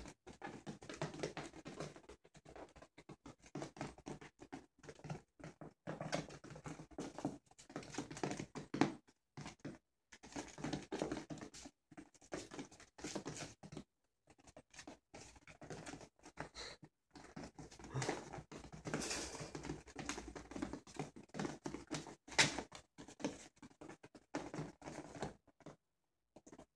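Italian Greyhound puppies moving about and playing, making irregular pattering and scratching sounds in short bursts broken by brief silences.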